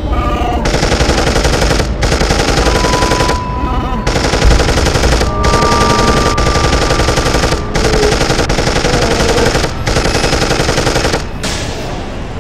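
Rapid automatic gunfire, a machine-gun sound effect, fired in several long bursts with brief breaks between them and tailing off near the end.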